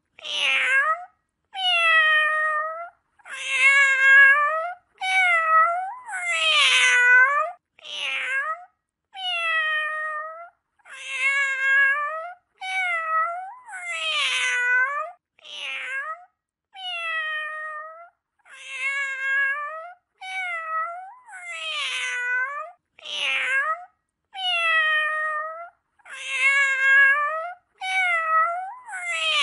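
A cat meowing over and over: a long run of high-pitched meows, about one a second, each dipping and then rising in pitch.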